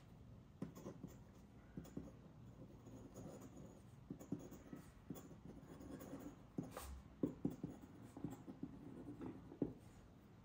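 Metal nib of a feather quill dip pen scratching quietly across paper in short, irregular strokes as words are handwritten.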